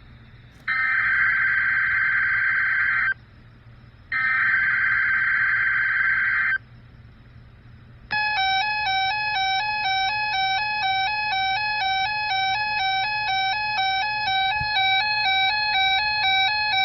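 Emergency Alert System header: two bursts of shrill digital data tones, each about two and a half seconds long. From about eight seconds in comes a loud attention signal of tones that alternate rapidly in pitch, announcing a severe weather alert.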